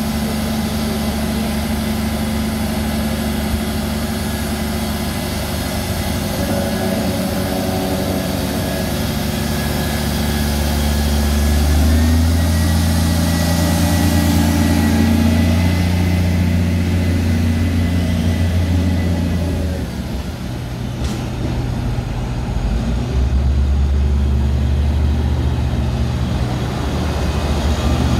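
Diesel engine of a heritage railway vehicle running. Its note rises about twelve seconds in with a steady high whine, drops back around twenty seconds, then picks up again a few seconds later.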